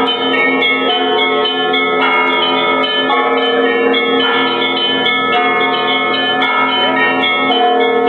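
Russian church bells ringing together: several bells of different pitches struck in quick, overlapping patterns, with frequent sharp strikes on the small high bells over the lingering hum of the deep bells.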